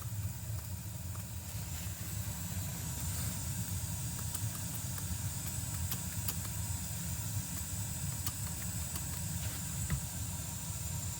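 Utica gas boiler's main burner firing through a newly fitted gas valve: a steady low rumble of the burning gas with a faint hiss over it and a few small ticks.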